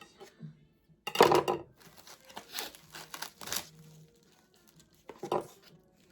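Crinkling and tearing during kitchen food preparation: a loud burst about a second in, several shorter ones after it, and one more near the end.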